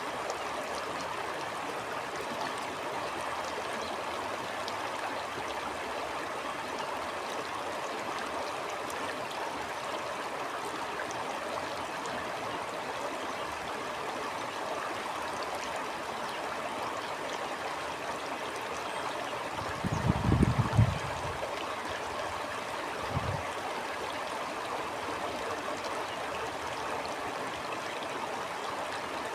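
Stream water flowing steadily over rocks, a continuous babbling rush. About two-thirds of the way through come two short low rumbles, the first and louder lasting about a second and the second briefer, some three seconds later.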